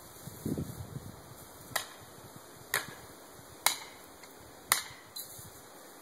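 Four sharp hammer strikes about a second apart, followed by a fainter fifth near the end.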